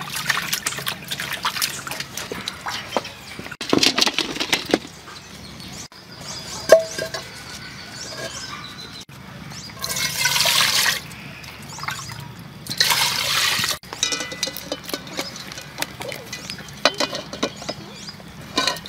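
Water splashing and sloshing as live lobsters are scrubbed by hand in a large aluminium basin. Then a brief sharp knock, and water poured from a plastic dipper into a metal pot, two pours of about a second each.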